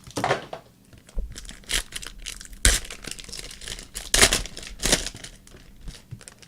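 Trading-card pack wrapper crinkling and tearing open by hand, in several short bursts.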